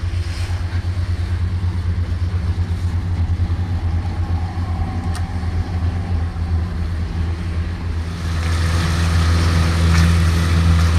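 Boat engine running steadily underway with an even, fast-pulsing hum, growing louder about eight seconds in.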